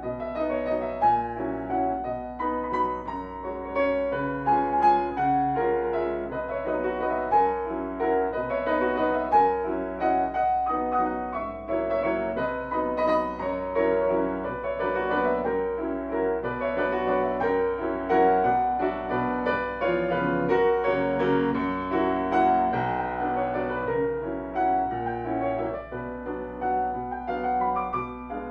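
Solo grand piano playing classical music, a continuous stream of quick notes mostly in the middle register.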